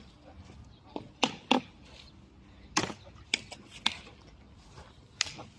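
A string of short, sharp knocks and clicks at uneven intervals, about seven in all, over faint outdoor background.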